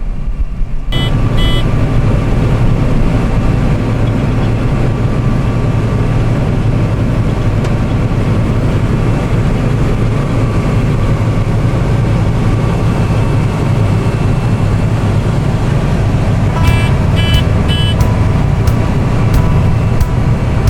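Combine harvester running steadily under load with a dense, loud machine drone, with a few short high-pitched beeps about a second in and again near the end.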